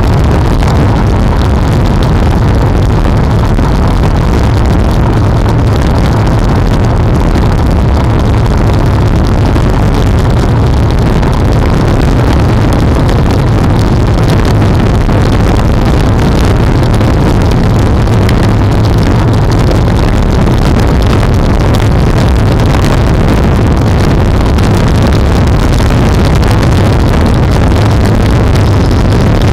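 Steady, loud rush of wind and road noise on a bicycle-mounted camera riding at speed, with the rumble of motorcycle and car traffic alongside.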